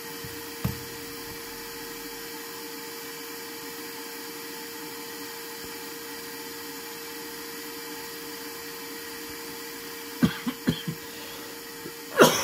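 A small electric motor or blower running steadily with a constant hum. Near the end come four sharp clicks in quick succession, then a louder clatter.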